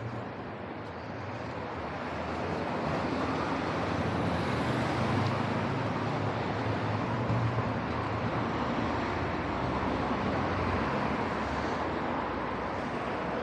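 Street traffic: cars driving through a city intersection as a steady noise, growing louder about two seconds in and then holding steady.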